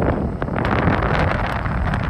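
Wind buffeting the microphone: a loud, rumbling rush with scattered clicks.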